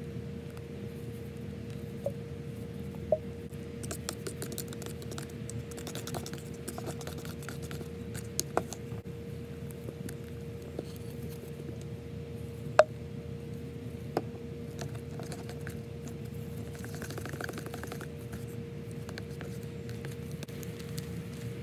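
Powder hair bleach and developer being stirred in a plastic tub with a tint brush: scratchy, wet scraping of the brush in the paste, with a few sharp clicks and taps against the tub, the loudest a little past halfway. A steady low hum runs underneath.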